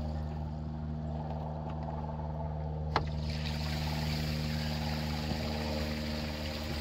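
Steady motor hum, with a click about three seconds in, after which a steady hiss joins it.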